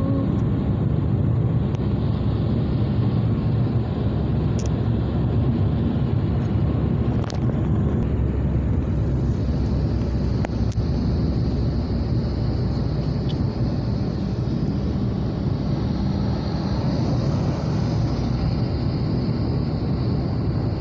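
Steady road noise inside a vehicle moving at highway speed: tyres on asphalt and engine drone, with a few faint clicks.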